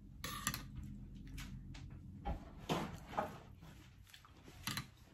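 Several soft, irregularly spaced knocks and thuds at a door, from a mail carrier dropping off packages.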